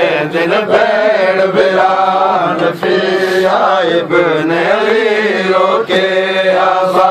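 A noha being chanted by men's voices, a mourning lament sung in a rising and falling line without a break, with a few sharp hits scattered through it.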